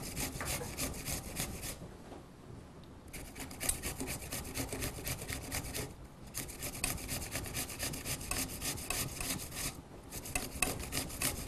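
Unpeeled yellow apple being grated by hand on a grater: quick, even strokes of about four a second, in runs of a few seconds broken by three short pauses.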